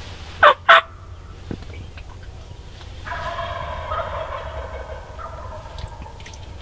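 Wild turkey gobbler gobbling: two short, loud calls about half a second in, then a longer, fainter call from about three to five seconds in.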